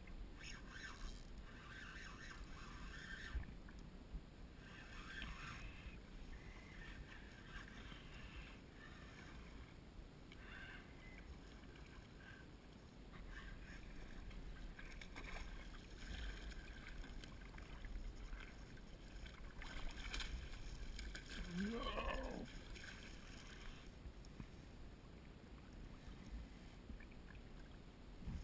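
Shallow bay water splashing and lapping around a wading angler as a hooked speckled trout is played and netted, with wind rumbling on the microphone. Near the end, a single short call sweeps up and back down in pitch.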